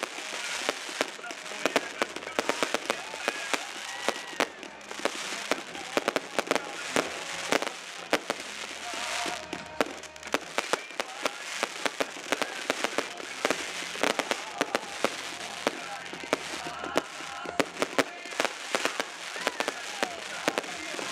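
Aerial fireworks bursting: many sharp bangs and crackles in quick succession, with hardly a gap between them.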